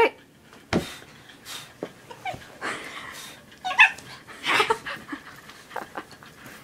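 A Basenji dog giving a few short, high-pitched cries while it wrestles in play, with soft knocks and rustling of bedding in between.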